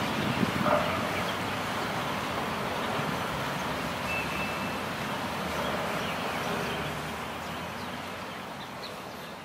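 Steady low outdoor background rumble, slowly fading toward the end, with a few faint, brief bird notes over it.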